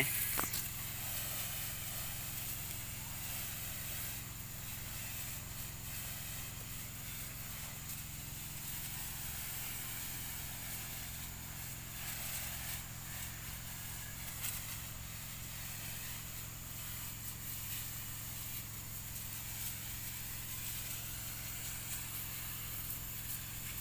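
Small Robin petrol engine running steadily, driving the pump of a pressure washer used as a weed sprayer. A steady high hiss runs over the engine.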